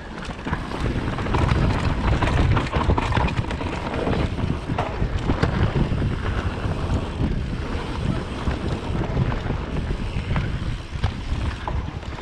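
Wind buffeting the camera's microphone while a mountain bike descends a dirt trail at speed, with the tyres rumbling over the ground and the bike rattling and knocking over bumps.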